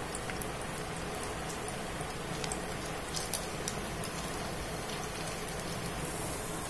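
Batter-coated cauliflower pieces deep-frying in hot sunflower oil: a steady sizzle with scattered sharp crackles.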